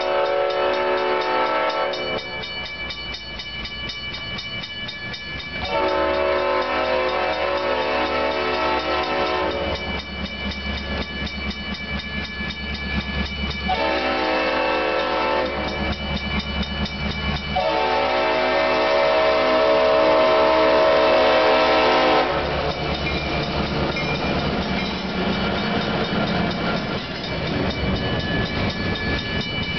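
Freight train's diesel locomotive sounding its horn for a grade crossing in the standard pattern: the end of one long blast, then a long, a short and a final long blast, over a grade-crossing bell ringing fast and steadily. After the last blast the locomotive rumbles past, and near the end the freight cars roll over the crossing with a clickety-clack.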